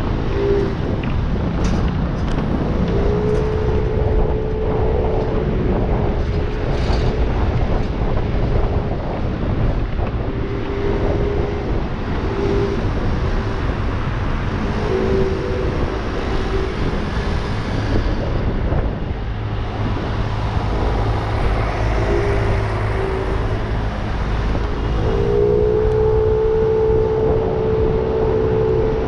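Aprilia SXR 50 scooter's engine running while it is ridden at steady speed, its note holding one pitch for several seconds at a time and dropping away in between, strongest near the end. Heavy wind noise on the microphone.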